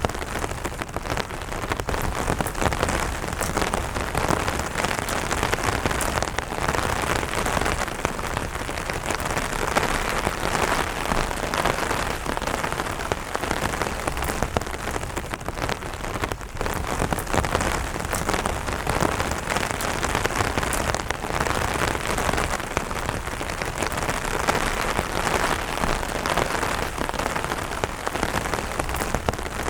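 Light rain falling steadily on an umbrella canopy, a dense, even stream of individual drop hits on the fabric.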